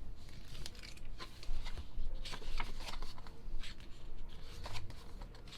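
Pages of an album's photo book being turned and handled: irregular short paper rustles and flicks.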